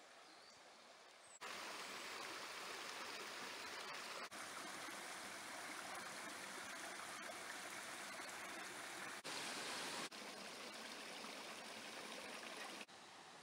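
Shallow river water rushing steadily over rocks. It is quieter for the first second or so, then jumps up or down abruptly in level several times.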